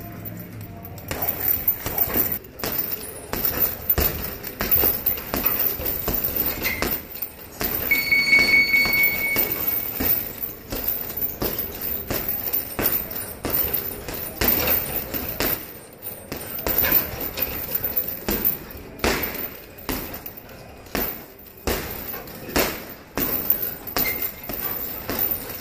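Boxing gloves punching a hanging Ringside heavy bag in fast, irregular flurries of thuds, with the bag's suspension chain clinking.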